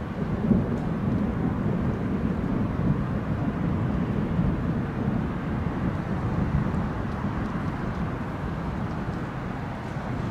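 Distant thunder rumbling low and continuously, with a few slight swells.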